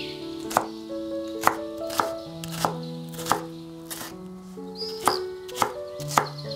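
Kitchen knife chopping on a cutting board, a sharp chop about every half second to second, over soft background music with held notes.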